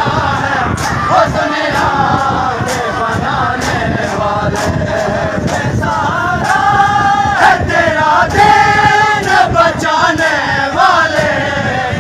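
Crowd of men chanting a Shia Muharram noha (lament) in unison, with no instruments, growing louder about halfway through. Under the singing, sharp slaps come about twice a second: hands beating on chests in matam.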